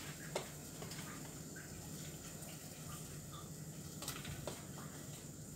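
Raw chicken pieces being put into an aluminium pot of water, heard as a few faint clicks and knocks over a low steady hum.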